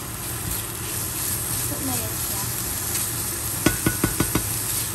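Sliced ham and hotdogs sizzling in a frying pan while being stirred with a silicone spatula. Near the end come five quick, sharp taps of the spatula against the pan, each with a brief ring.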